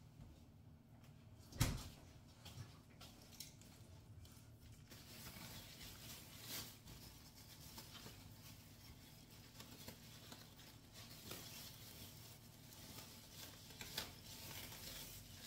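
One sharp knock about two seconds in, then faint rustling and small clicks of a phone camera being handled close to its microphone.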